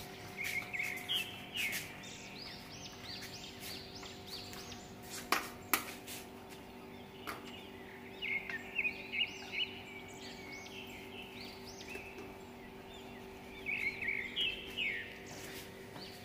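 Bird chirping in three bursts of quick, high, repeated calls over a steady low hum, with two sharp clicks about five seconds in.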